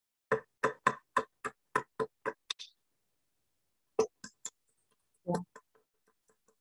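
Claw hammer tapping small nails into a wooden board: a quick, even run of about nine sharp strikes, a pause of over a second, then three more strikes and a longer, duller knock near the end.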